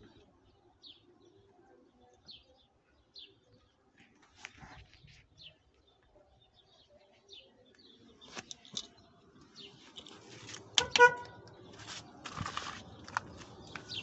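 Faint, short bird chirps, then rustling and bumping as the phone is moved through the car's interior. One sharp click with a brief ring about eleven seconds in is the loudest sound.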